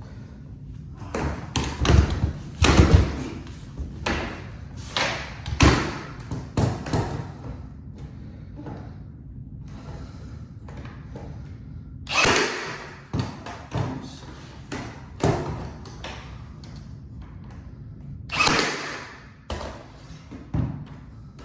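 RIDGID 18V brushless cordless 18-gauge brad nailer driving brads into wooden trim: a series of sharp thumps at irregular intervals, the loudest clustered about two to three seconds in and again later on.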